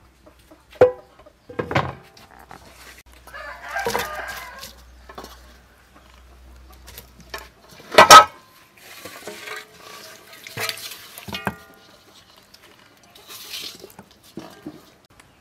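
An aluminium cooking pot and its lid clanking on a wooden table, with one sharp, loud knock about 8 seconds in. A rooster crows and chickens cluck in the background.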